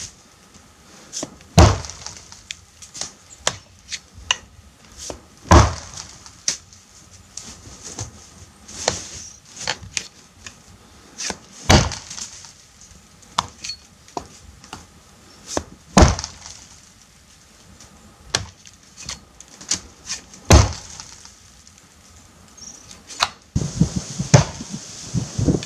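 Helko Werk Tasmanian felling axe chopping into a standing tree trunk: five heavy strikes about four to six seconds apart, with lighter knocks between them. Rustling starts near the end.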